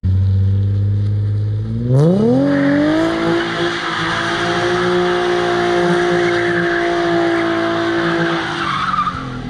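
Car engine revving up about two seconds in and held at high revs for several seconds while the tyres spin and slide on wet asphalt, the revs falling away near the end.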